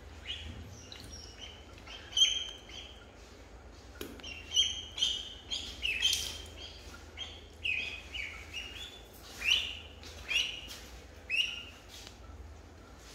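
Ducklings peeping: short, high, mostly falling calls repeated irregularly, starting about two seconds in.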